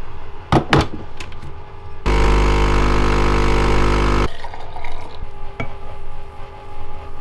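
Home espresso machine: a couple of sharp clicks, then the pump hums steadily for about two seconds while a shot is pulled and stops suddenly. Afterwards come quieter pouring sounds and a light knock as milk is poured into a mug.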